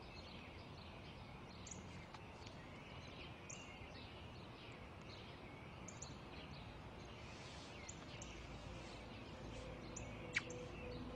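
Small birds chirping over a faint outdoor hiss, many short calls throughout. Soft music starts to come in faintly near the end, with one sharp click just before the end.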